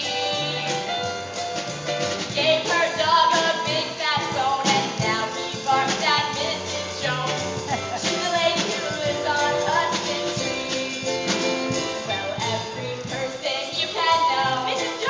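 Singing over upbeat backing music: a stage musical number.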